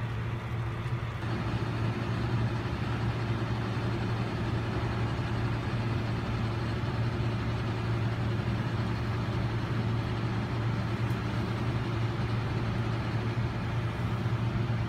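A steady low machine hum with a constant rushing noise over it, unchanging throughout.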